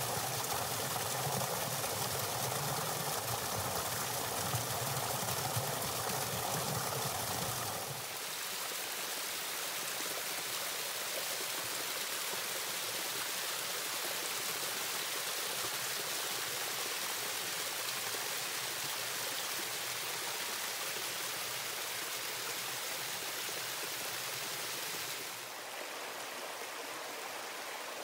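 Rushing river water, a steady flow. The low rumble drops away abruptly about eight seconds in, leaving a lighter, higher rush that gets slightly quieter again near the end.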